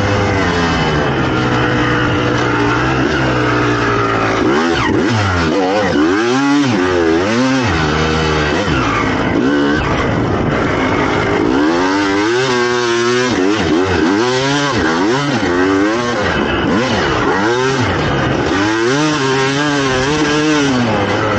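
2007 Suzuki RM250's single-cylinder two-stroke engine through an FMF exhaust, ridden hard: the revs climb and drop again and again as the throttle is twisted open and rolled off.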